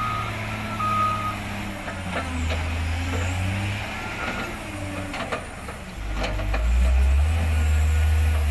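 Caterpillar 966H wheel loader with a log grapple, its diesel engine running with a low rumble that grows louder about six seconds in as it works under load. Its reversing alarm beeps a few times in the first second or so, and a few knocks are heard along the way.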